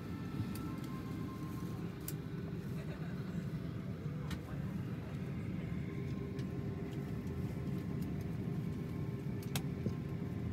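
Steady low rumble of an airliner cabin while parked at the gate, with faint passenger voices and a couple of sharp clicks.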